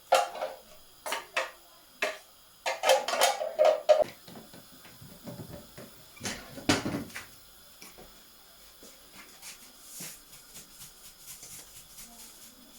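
A spoon knocking and scraping against a cooking pot while sauce is scooped out, with a quick run of sharp clinks in the first few seconds and a heavier scrape about halfway through, then only faint handling sounds.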